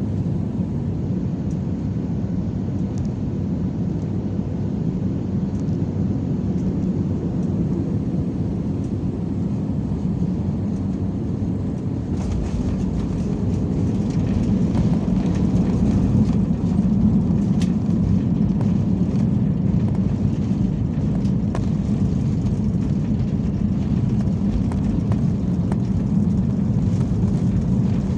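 Airbus A320 cabin noise heard from a passenger seat: a steady low rumble of airflow and CFM56 engines. About twelve seconds in it turns rougher and a little louder, with scattered rattles.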